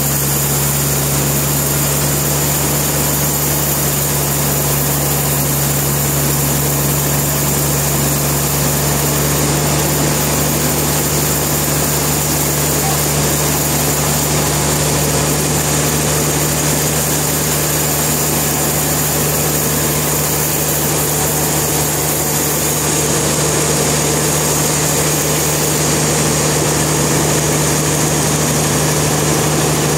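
Sawmill machinery running steadily with a constant low hum and an even mechanical noise, unchanging throughout.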